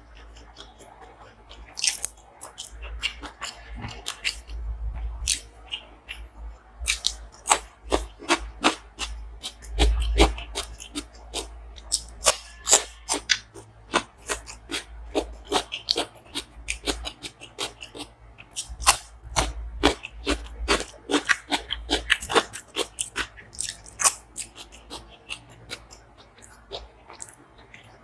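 Close-miked eating: crunchy bites and chewing, with sharp crunches coming several times a second throughout.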